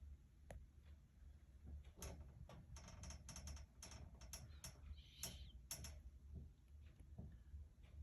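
A quick run of faint clicks and taps, about two to six seconds in, over a low steady hum.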